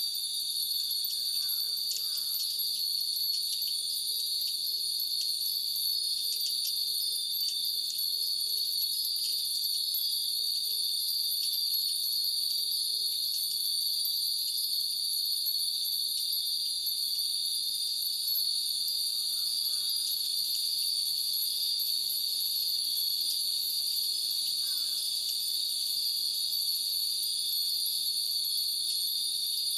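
Summer cicadas buzzing in a dense, steady high drone, with many Japanese furin wind bells tinkling over it, most busily in the first half.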